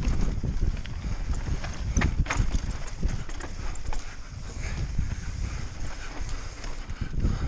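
Mountain bike on rough ground, heard from a helmet camera: a run of irregular rattling clicks and knocks over a low, steady rumble of wind on the microphone.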